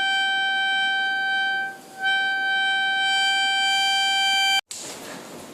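A steady, high single-pitched tone held for nearly two seconds, dipping briefly, then held again for over two seconds before cutting off suddenly. A short burst of hiss follows.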